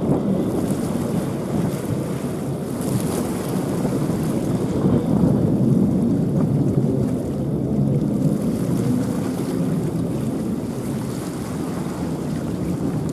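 Wind buffeting the microphone at the seashore: an even, low rushing noise that swells and eases, with no distinct engine or other sound standing out.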